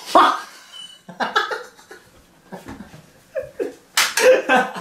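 People laughing in several bursts, mixed with a little indistinct talk.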